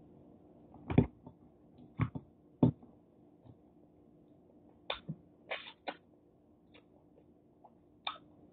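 Eating sounds of seafood boil eaten by hand: about eight short, sharp smacks and clicks from lips, fingers and shells as shrimp and crab are peeled and fingers licked, the loudest about a second in.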